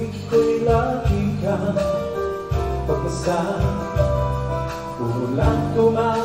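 A male singer singing live into a microphone over amplified instrumental backing, holding long notes.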